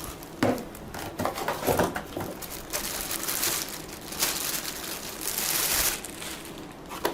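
Plastic packaging being crinkled and pulled off a vacuum power head, with a few handling clicks and knocks in the first two seconds.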